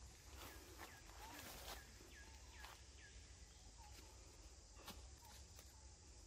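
Faint forest ambience: a run of about four short falling chirps in the first half, and a few sharp clicks of branches and twigs as macaques climb through the trees.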